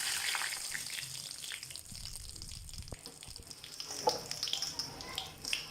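Cumin seeds sizzling in hot mustard oil as a tempering, a fine hiss with small crackles that is strongest at first and dies down over the next couple of seconds.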